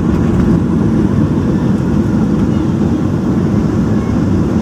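Cabin noise of a Boeing 737 rolling out on the runway after touchdown, ground spoilers raised: a loud, steady low rumble of engines and wheels.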